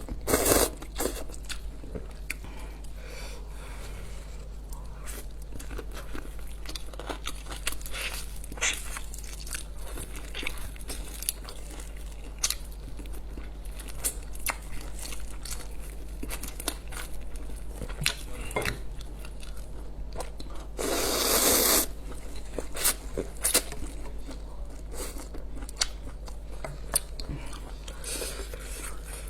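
Close-miked eating: irregular crunchy bites and wet chewing, over a steady low hum. About two-thirds of the way through there is a louder rushing burst lasting about a second.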